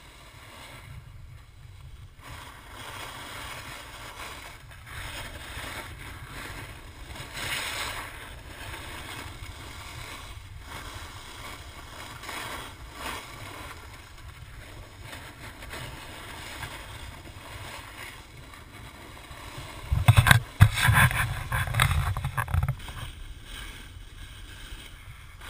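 Snowboard sliding down a packed snow slope: a steady scraping hiss of the board on snow with wind rumbling on the microphone. About twenty seconds in it turns much louder for a couple of seconds, a burst of harder scraping and rumble.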